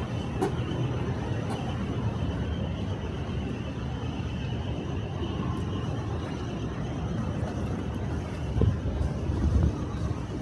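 Steady road traffic on a busy city avenue: the low rumble and tyre noise of passing cars. Two brief louder low thumps come near the end.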